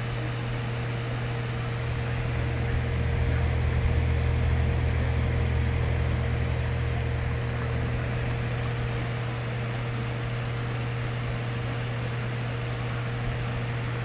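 Black+Decker box fan running steadily: a low motor hum with a faint higher tone over an even rush of air from the blades, growing louder about two seconds in and easing back after about six seconds.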